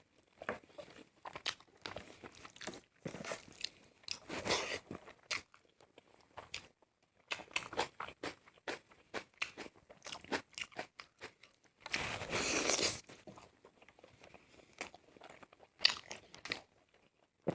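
Close-miked chewing and biting of food, with many small wet clicks and crunches and two longer, louder noisy stretches, about four and a half seconds in and around twelve to thirteen seconds.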